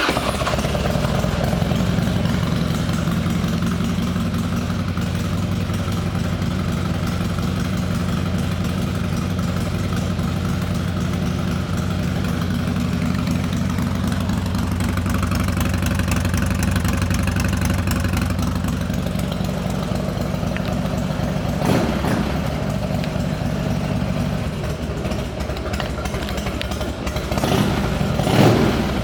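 2002 Harley-Davidson Dyna Wide Glide's Twin Cam 88 V-twin with Screamin' Eagle pipes, idling steadily just after start-up. The throttle is blipped briefly about 22 seconds in and twice more near the end.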